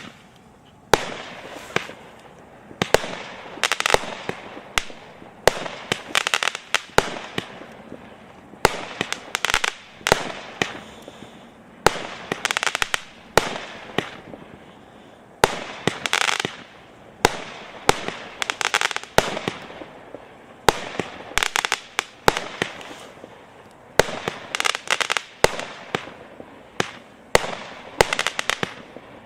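A 120-shot 0.6-inch fireworks cake firing, with sharp reports about once a second. Each is followed by a burst of dense crackling that lasts up to a second.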